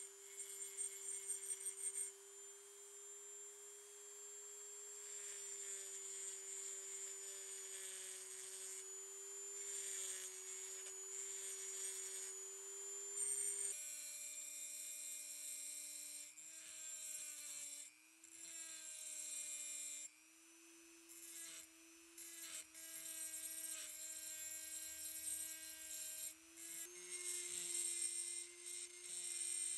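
Handheld rotary tool running with a steady whine as its bit grinds the inside of a die-cast metal toy car body, with a scratchy rasp of the cutter on the metal. About 14 seconds in, the whine drops lower and holds there.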